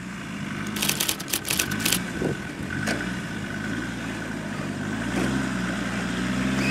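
Land Rover Discovery 2 TD5's five-cylinder turbodiesel engine pulling at low revs as it crawls through a deep washout, its note dipping and then rising a little about five seconds in. A run of sharp crackles comes between one and two seconds in.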